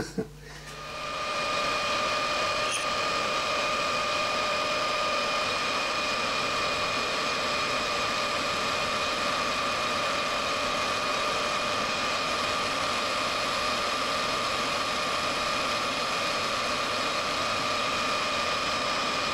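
Metal lathe spinning up about a second in, then running steadily with a steady whine while a high-speed steel tool takes a light finishing cut on a small steel part held in a four-jaw chuck.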